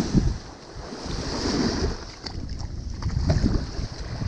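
Ocean surf washing in over the sand and around wading legs, rising and falling in swells, with wind buffeting the microphone.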